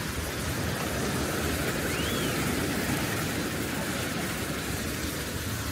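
Sea surf washing steadily on a sandy beach, with wind buffeting the microphone.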